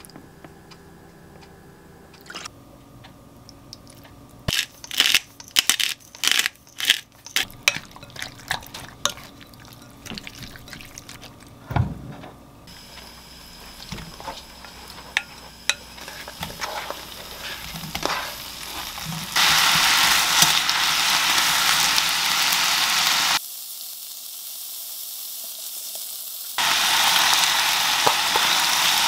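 A wooden spoon clicks against a glass bowl in a quick run of strokes as sliced meat is mixed with a soy-sauce marinade. Then the meat and onions go into a hot frying pan and sizzle loudly as they stir-fry, with a short quieter stretch near the end.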